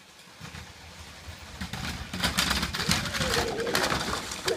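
Motorized Lego train running along plastic Lego track, its motor rumble and the rapid clicking of its wheels over the track joints growing louder as it approaches.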